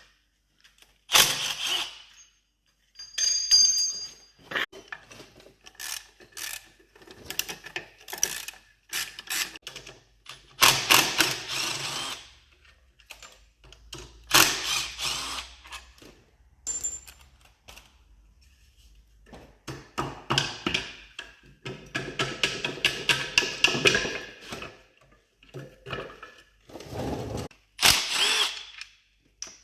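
Hand tools working on a Scania truck during disassembly: bursts of rapid ratchet clicking mixed with separate metal clinks and knocks, stopping and starting.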